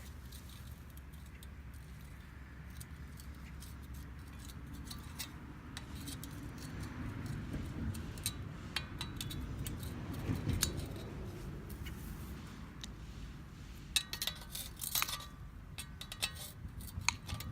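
Hand work on an old machete's handle: low rubbing and shuffling, then scattered light metallic clicks and clinks, bunched together near the end.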